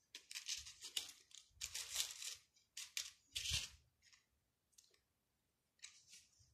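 Fabric rustling and crinkling in irregular bursts as hands handle and adjust the cross-stitched flags and the embroidery ribbon.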